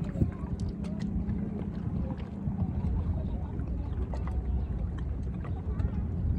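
Small waves lapping and splashing against shore rocks, with many small irregular splashes over a steady low wind rumble on the microphone.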